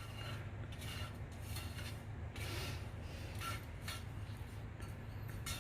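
Soft, irregular rubbing and scraping strokes of something being handled, with a steady low hum underneath.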